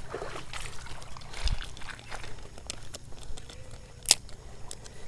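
Water trickling and lapping at a pebble shore, with scattered light clicks and one sharp click about four seconds in.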